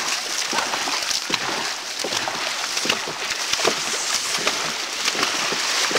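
Dragon boat crew paddling hard: paddle blades striking and pulling through the water with continual splashing and sloshing, heard from inside the boat.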